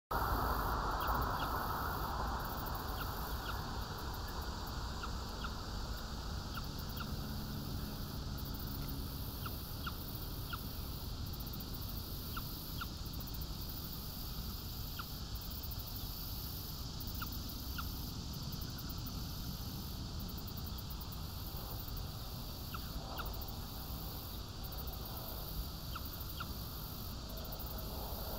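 Marsh-pond ambience: a steady low rumble and hiss with many scattered short, high ticks or chips, and a few soft duck calls near the end.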